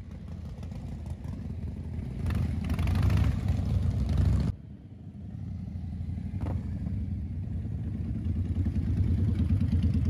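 Cruiser motorcycles riding past one after another at low speed, their engines running and getting louder as they come near. The sound breaks off sharply about four and a half seconds in and builds again from another passing bike.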